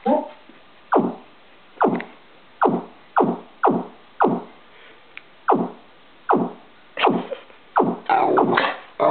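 Synthesized sound effect played from a computer: a string of about eleven short zaps, each falling steeply in pitch, coming roughly one or two a second, with a denser, busier patch of sound near the end.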